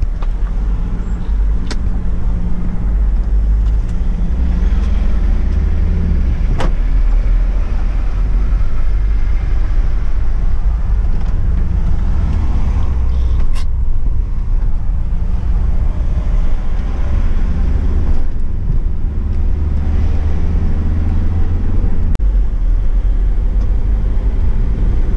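Steady low engine and road rumble heard inside the cabin of a moving van, with a few brief sharp clicks.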